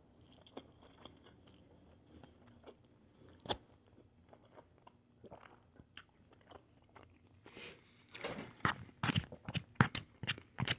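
Close-miked eating: faint mouth clicks and small chews, then a run of crunchy bites and chewing starting about eight seconds in.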